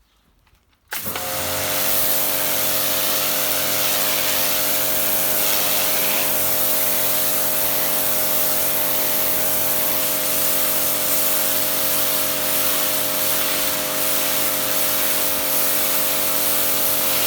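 Kärcher K5 pressure washer starting suddenly about a second in, its motor and pump then running steadily under the hiss of the high-pressure jet spraying a wall.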